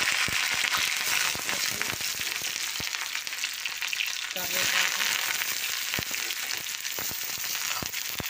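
Hot oil sizzling and crackling in a kadai, with many sharp pops of spattering. A little past halfway the sizzle gets louder and brighter as chopped onion, green chillies and curry leaves go into the oil.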